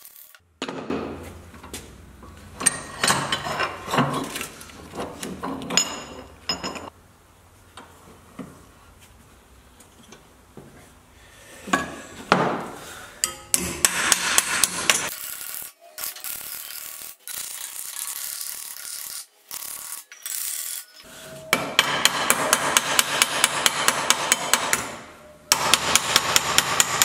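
Hammer striking a sheet-metal repair panel clamped in a bench vise against a comma dolly, stretching the metal to the dolly's curve. Scattered blows at first, then quick, even runs of light taps, about six a second, in the last few seconds.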